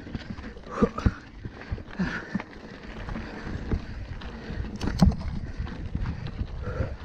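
Mountain bike clattering over rocky hardpan and loose stones: an irregular run of knocks and rattles from the tyres, frame and suspension hitting rock, over a steady rumble of tyres on dirt. The loudest knock comes about five seconds in.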